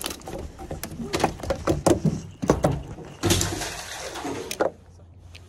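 Handling noise from unhooking a small yellowtail with pliers over a landing net on a boat deck: a quick run of sharp clicks and knocks, then a louder rustling clatter a little after three seconds in.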